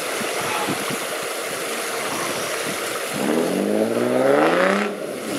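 Off-road 4x4's engine running with a rough, uneven rumble, then revving up in a smooth rising climb for about two seconds from about three seconds in, and cutting off suddenly near the end.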